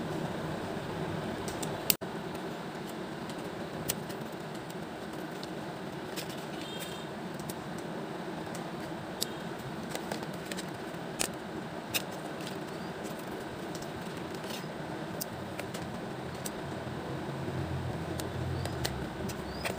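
Steady background hiss with scattered small clicks and taps from plastic pens and packaging being handled, the sharpest click about two seconds in.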